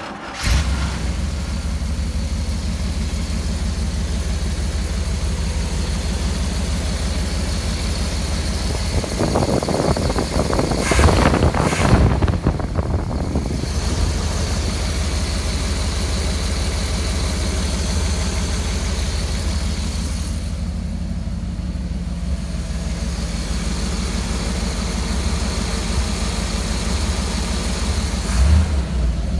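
1969 Chevrolet Corvette's 427 cubic-inch big-block V8 starting up and settling into a steady idle. The throttle is blipped, louder and rougher, around ten to twelve seconds in and once more briefly near the end.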